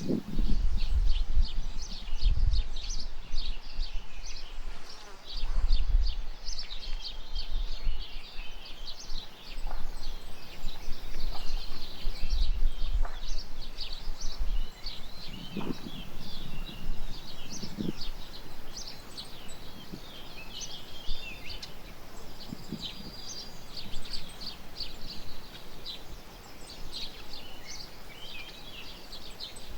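Small birds chirping and singing continuously in the background, many short high notes overlapping. Low rumbling bursts come and go in the first several seconds.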